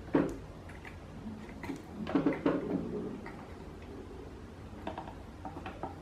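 Utility knife blade cutting and prying at a small piece of hard plastic on a desk fan's tilt bracket: scattered small clicks and scrapes, with a short louder patch of scraping about two seconds in.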